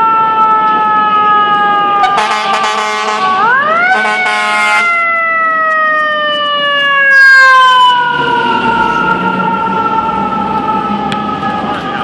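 Fire engine siren, its wail falling slowly in pitch and spun back up about three and a half seconds in, then falling slowly again. Air horn blasts sound over it about two seconds in, again just after it rises, and once more, loudest, about seven seconds in.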